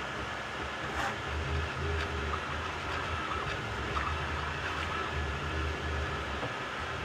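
Desktop 3D printer running: a steady machine noise from its fans and stepper motors, with a low rumble that swells and shifts as the print head moves, a faint whine, and a few light ticks.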